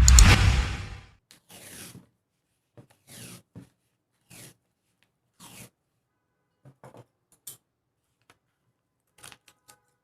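Masking tape pulled off the roll in one long, loud rip in the first second, then a scatter of short, fainter tearing and scraping sounds as the tape is torn and laid over a crack in wood.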